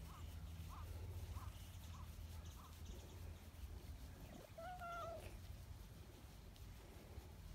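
Brown tabby cat giving one meow, about half a second long, a little past the middle. Faint short chirps repeat about every half second in the first few seconds.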